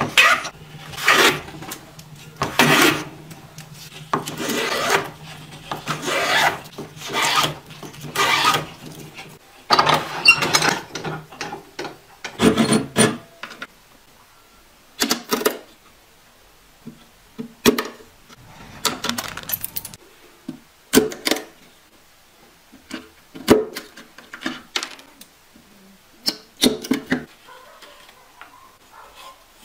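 Hand saw cutting a wooden strip in repeated strokes, roughly one a second, over a low steady hum for the first part. Later the strokes come more sparsely, with light knocks and clicks of wood being handled.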